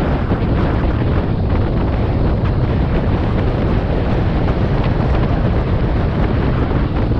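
Wind buffeting the microphone of a camera on a moving bicycle: a steady, loud low rumble, with the hiss of bicycle tyres rolling on wet asphalt.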